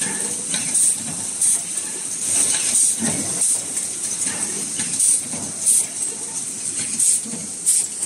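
Automatic gallon can body production line running: a steady high machine hiss with short, sharp bursts of air repeating roughly every 0.7 seconds, the pneumatic tooling cycling as cans are clamped and moved.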